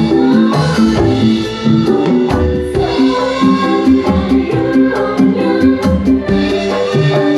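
Loud music: hand percussion keeps a steady beat under a melody of short held notes.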